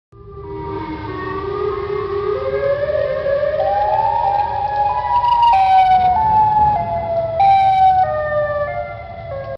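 Synthesized emergency-alert alarm: several tones sounding together slowly climb in pitch over a low rumble, then drop in short stepwise jumps and fade near the end.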